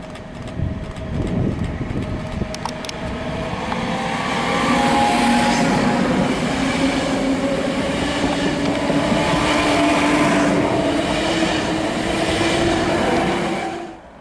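Koleje Śląskie electric multiple unit running close past the platform: wheel-on-rail noise with a steady humming whine, growing loud about four seconds in as the cars go by. A few sharp clicks come early on, and the sound cuts off suddenly near the end.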